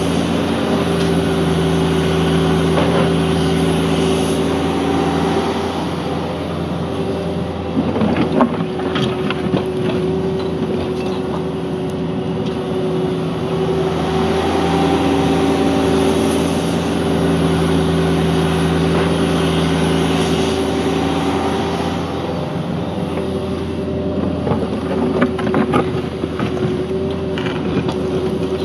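Cat 305.5E2 mini excavator's diesel engine running under working load, its note swelling and easing in long stretches as the hydraulics dig and swing. Bucket scraping and clattering through gravel about eight seconds in and again near the end.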